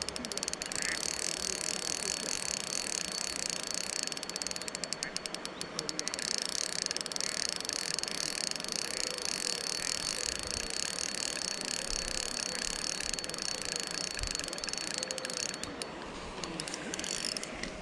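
Spinning reel being wound in against a taut line, its gears and rotor making a fast, even ticking whir that breaks off briefly near the end.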